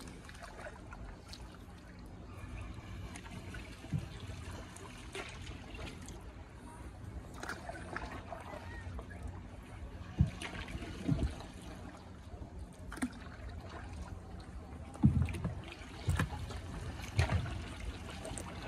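Water trickling and lapping against a small wooden gondola boat as it glides along a canal, over a low steady rumble. Several short dull knocks come through, mostly in the second half.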